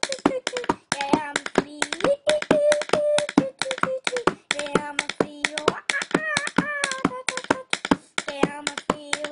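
A pencil tapped rapidly as a drumstick, about four or five sharp taps a second, under a child singing wordless held notes that jump up and down in pitch.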